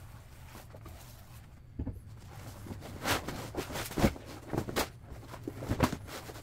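Rustling and a run of short, soft knocks and scuffs as a vinyl car top is lifted and spread out on a work table, most of it in the second half.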